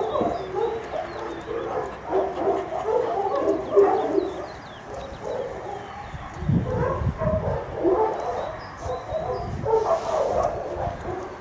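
Several dogs barking and yipping in an irregular, overlapping chorus, with small birds chirping faintly above it.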